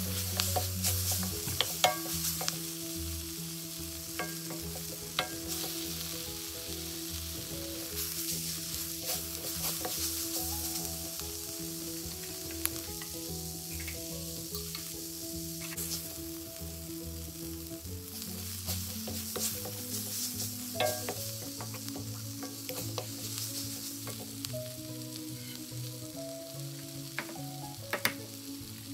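Moringa leaves and onions sizzling gently in a stainless steel wok over low heat, with a wooden spatula stirring and scraping against the pan, the scrapes and taps most frequent near the start.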